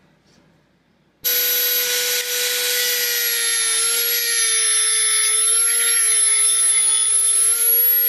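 Dremel rotary tool with a cut-off disc switched on about a second in, then running steadily with a high whine, the disc spinning freely clear of the work.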